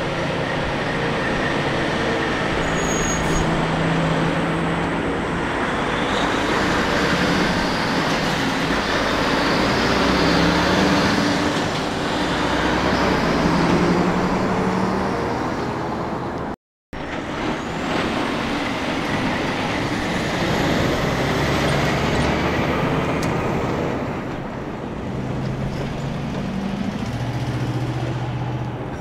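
Diesel semi trucks passing close by, engines running under load with tyre and road noise, the engine note stepping up and down. The sound cuts out for a moment a bit past halfway and resumes with another passing truck.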